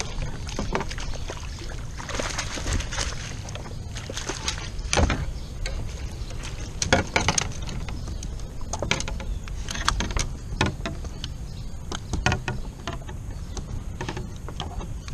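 Irregular knocks and clatter of fishing gear, rod and landing net against the plastic hull of a small fishing boat while a small carp is being landed, over a steady low rumble.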